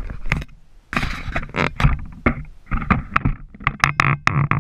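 Close, irregular knocks, clicks and rubbing scrapes right at the microphone, the sound of the camera and its mount being handled and bumped.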